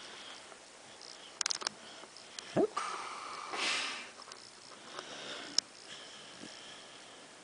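Sleeping beagle breathing noisily through its nose in snuffling snores, with a cluster of sharp clicks about one and a half seconds in and a short rising squeak about two and a half seconds in.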